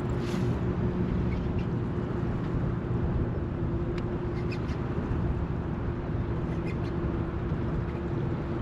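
Steady hum of a bass boat's electric trolling motor under wind rumbling on the microphone, with a few faint clicks.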